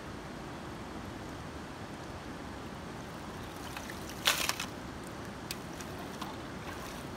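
Steady rush of a shallow river flowing over stones. About four seconds in comes one sharp clatter as a scoop of wet gravel is tipped into a plastic bucket, followed by a few lighter knocks.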